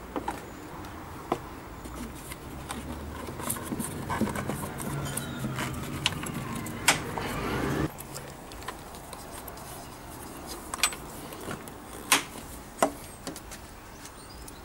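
Plastic air cleaner box lid of a Honda Orthia being fitted over a new panel air filter and clipped shut: a series of sharp plastic clicks and knocks. A steady low background hum grows louder in the middle and cuts off suddenly about eight seconds in.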